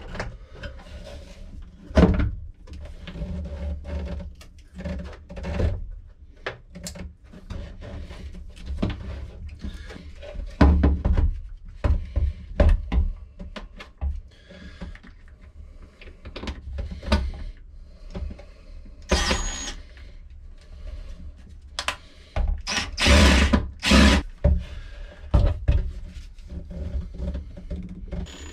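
Knocks, clunks and rattles of hoses and fittings being handled, then a DeWalt cordless drill/driver whirring in short bursts in the last third, driving in the pump's mounting screws.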